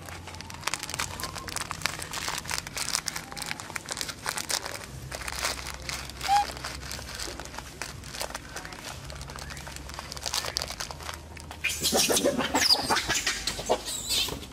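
Close, continuous crackling and rustling, with a short chirp about six seconds in and a louder burst of high, sliding squeals around twelve seconds in.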